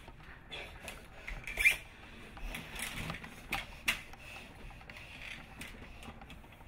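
Light knocks, clicks and rustling as a person clambers about with a metal tripod and onto a leather couch, with two sharper knocks, the loudest about a second and a half in and another about four seconds in.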